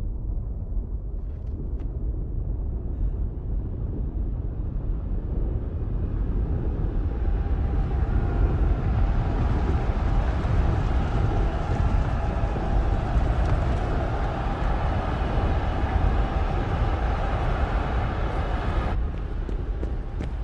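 Dense, steady low rumble of a film battle soundtrack. It swells through the middle and drops away sharply near the end.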